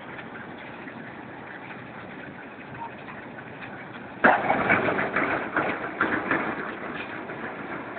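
Reversible concrete drum mixer plant running steadily. About four seconds in, a sudden loud rattling rush of aggregate pours into the mixer's loading hopper and tapers off over the next few seconds.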